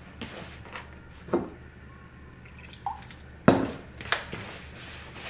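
Hands squeezing and mixing moist, crumbly flour dough in a plastic bowl: a few short wet squishes and taps, the loudest about three and a half seconds in. Water is being worked in a little at a time.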